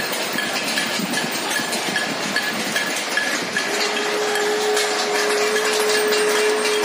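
Many people across neighbouring rooftops clapping and banging on metal, a dense clatter of countless overlapping strikes. About halfway in, a long, steady horn-like note starts and is held over the din.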